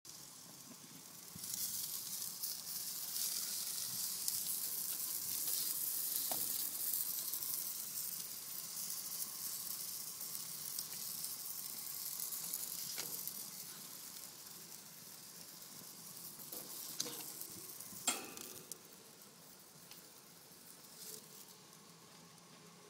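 Hot dogs sizzling on a barbecue grill's grates: a steady high hiss that comes up about a second and a half in and fades over the last third. A few sharp clicks and knocks break in, the loudest about 18 seconds in.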